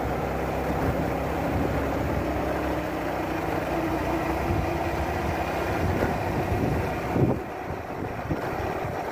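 A small vehicle's engine running steadily with road noise while it moves along a dirt road, with one brief louder bump a little after seven seconds in.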